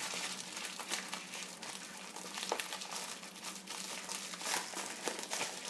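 Packaging crinkling and rustling with scattered small crackles as silver bullion bars are unwrapped by hand.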